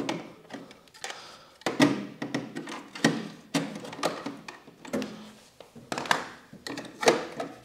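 Hard plastic parts of a cordless vacuum cleaner and its dock being handled: a string of clicks, taps and knocks at uneven intervals, roughly one or two a second.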